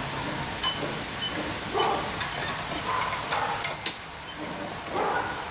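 Scattered light clicks and taps as the belt and top tracking wheel of a homemade 2x72 belt grinder are handled, over a faint steady hiss of background noise.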